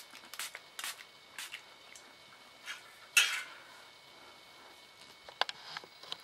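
Hairbrush strokes through a reborn doll's rooted hair: several short, soft swishing rustles spaced irregularly, the loudest about three seconds in.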